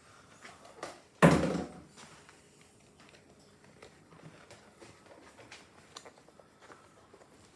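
One loud clunk about a second in, then faint light clicks and taps as kitchen items are handled while drying dishes.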